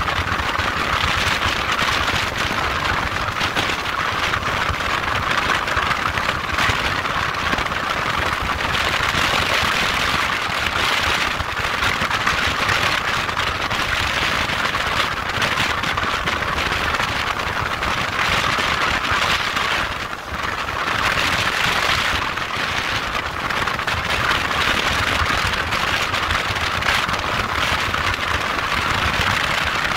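Steady rushing noise of a motorcycle on the move: wind and road noise, with a brief dip about twenty seconds in.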